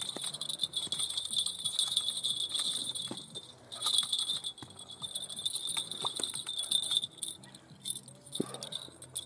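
A chorus of insects buzzing steadily at a high pitch, dropping away briefly a couple of times, with scattered faint clicks.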